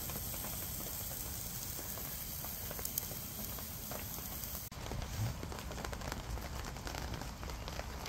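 Spirit burner flame in a folding metal pot stove: a steady hiss with light crackles and ticks. The texture changes abruptly a bit past halfway.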